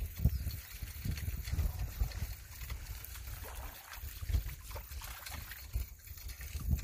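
A hooked small largemouth bass splashing at the water's surface about four seconds in as it is reeled in and lifted out, over a low rumble and scattered knocks on the microphone.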